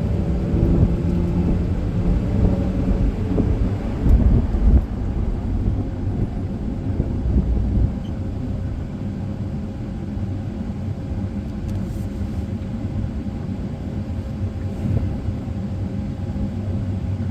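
Car interior while driving: steady engine and road rumble, with a loud jolt about four seconds in, then settling to a quieter, even drone.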